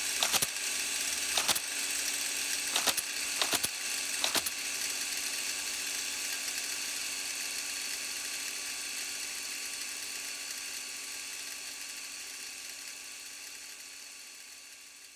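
Typewriter typebars striking the paper, about five sharp irregular clacks in the first four or five seconds, over a steady mechanical hum that slowly fades out.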